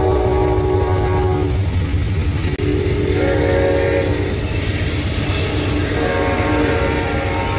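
Amtrak P42DC locomotive's multi-tone air horn sounding three blasts, each about a second long, for a grade crossing. Under the blasts is the steady low rumble of the passing train and its passenger cars rolling on the rails.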